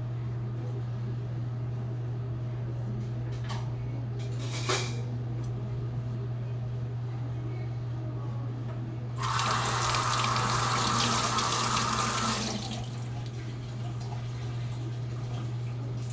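Water running from a tap for about three seconds, starting about nine seconds in, over a steady low hum. Two short sounds come about four seconds in.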